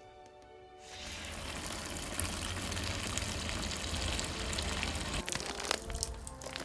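Water from a garden hose rushing into the reservoir of a Maxikap foam capillary growing box, starting about a second in and running steadily, with background music.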